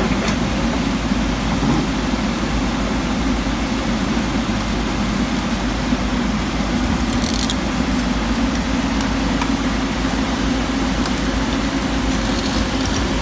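Diesel engine of a JCB JS220LC tracked excavator running steadily, with a brief clink about seven seconds in.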